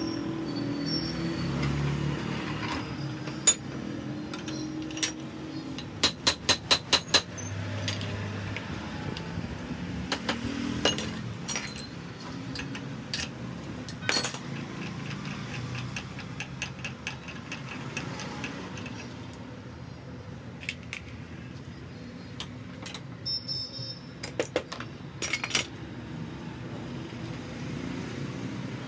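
Sharp metallic clinks and knocks of motorcycle front fork parts being handled and worked on at a bench, including a quick run of about seven taps a few seconds in and a fast, faint rattle in the middle.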